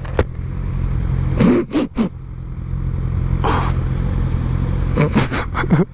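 Suzuki GSX-R600 sport bike's inline-four engine running and picking up speed, heard through the rider's helmet microphone, with a few short bursts of noise over it.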